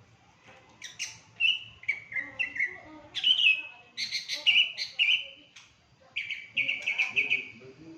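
A songbird singing a run of varied chirps and short warbled phrases. It starts about a second in and goes on with brief pauses.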